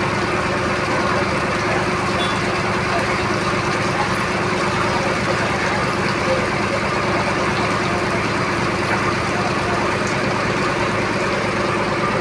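Boat engine running steadily, a constant low hum under an even wash of noise.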